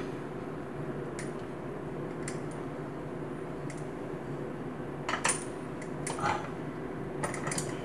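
Scattered light metallic clinks and taps of hand tools and fittings being worked on a faucet's supply lines and shutoff valves under a kitchen sink, the loudest cluster about five seconds in, over a steady low hum.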